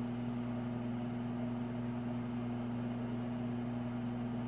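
Steady low electrical or mechanical hum with a faint hiss behind it.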